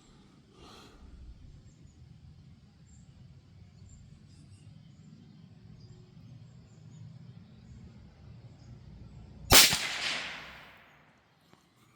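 A single shot from a Marlin 782 bolt-action .22 Magnum rifle: one sharp crack near the end that trails off over about a second and a half.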